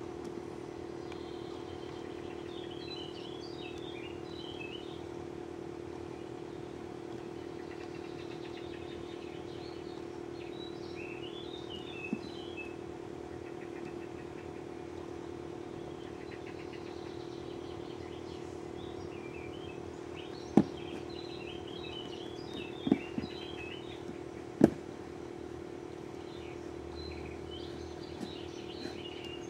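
Small birds chirping on and off over a steady hum. A few sharp clicks stand out as the loudest sounds, one about twelve seconds in and a cluster of three to four around two-thirds of the way through.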